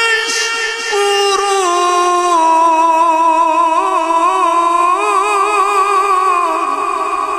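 A man's unaccompanied voice chanting a long, ornamented devotional line through a microphone and PA. The held notes waver rapidly and step down in pitch.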